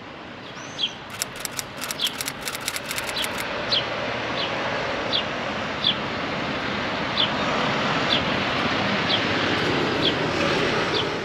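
Mercedes-Benz Citaro city bus driving past, its engine and tyre noise swelling to a steady rush. A bird repeats a short high chirp about every three-quarters of a second, and a quick run of clicks sounds in the first few seconds.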